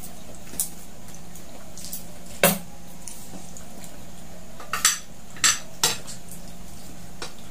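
Metal spoons and forks clinking against plates and bowls while eating: about six short sharp clinks, the loudest about two and a half seconds in and three close together around five to six seconds in, over a steady low hum.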